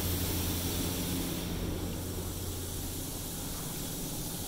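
Automatic car wash spraying water onto the car, heard from inside the cabin: a steady hiss over a low hum, the hiss swelling briefly about a second and a half in.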